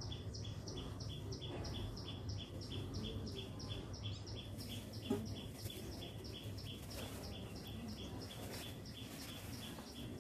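A bird calling a steady, even run of short high chirps that alternate between two pitches, about three pairs a second, over a low steady rumble. One brief soft knock about five seconds in.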